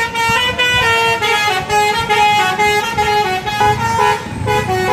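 Telolet musical bus horn playing a tune of short, stepped notes, about three notes a second.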